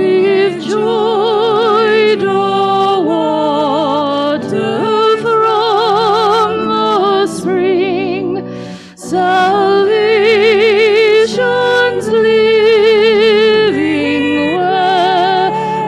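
A hymn sung by a single voice with strong vibrato over held accompaniment notes, with a short break between phrases about nine seconds in.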